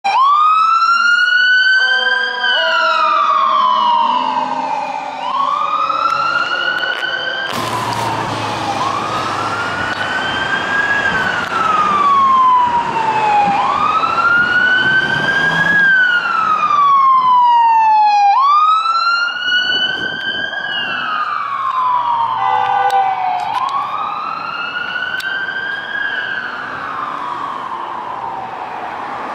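Emergency vehicle siren on a wail, its pitch rising and falling in slow cycles of about five seconds, with the rush of road traffic loudest about eight to sixteen seconds in.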